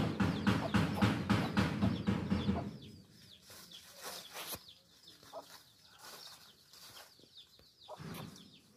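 Mother hen clucking rapidly to her chicks, about four clucks a second, stopping about two and a half seconds in; after that the chicks peep softly with short, high, falling chirps.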